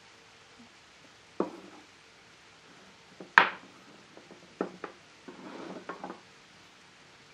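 Heavy wooden workpieces being set down on a wooden workbench: a few sharp knocks, the loudest about three and a half seconds in, then a brief scrape as pieces are slid across the bench top.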